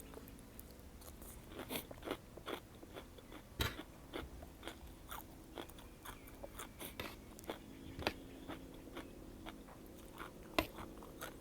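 Close-up eating sounds: irregular crunching and wet chewing clicks of a mouthful of spicy seafood papaya salad.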